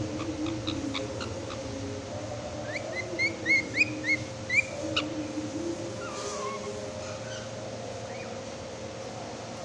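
White cockatiel calling: a quick run of about six short rising chirps a few seconds in, then a fainter call that slides downward, over a steady background hum.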